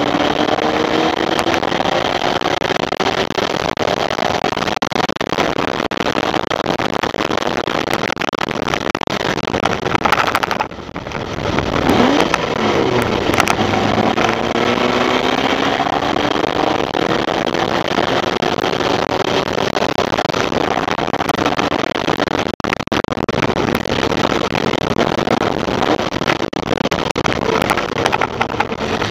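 Formula Vee race car's air-cooled Volkswagen flat-four engine at racing speed, heard onboard. It winds steadily up through the revs, drops off suddenly about ten seconds in with a quick dip and rise in pitch as it comes off the power and shifts, then picks up and climbs again.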